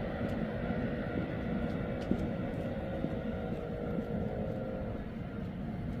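Distant electric train passing over a level crossing: a low rumble with faint steady tones that fade out about five seconds in.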